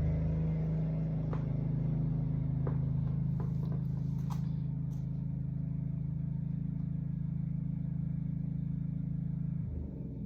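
A steady low mechanical hum, like a motor running, with a few light clicks in the first half; it cuts off suddenly near the end.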